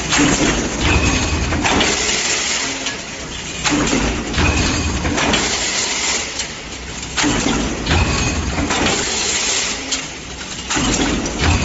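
Multi-station transfer die stamping press running, the noise swelling with each stroke in a cycle that repeats about every three and a half seconds, with sharp metal knocks.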